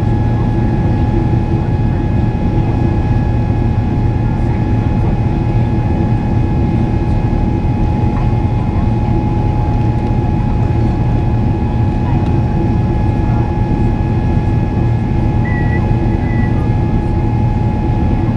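General Electric GE90 turbofan of a Boeing 777-300ER heard from inside the cabin in flight: a loud, steady drone with a constant whine over it.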